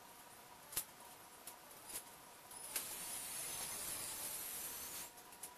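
Work on the race truck's bodywork, heard from across the shop: two sharp clicks, then a steady hiss with a high wavering whine for about two seconds before it stops.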